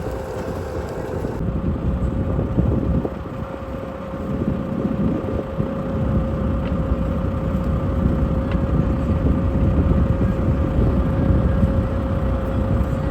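A vehicle engine running steadily with a constant hum, and wind buffeting the microphone.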